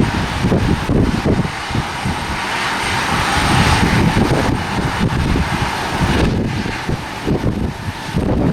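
Gusty wind buffeting the camera microphone, over the steady rushing and whine of a jet airliner's engines that swells near the middle.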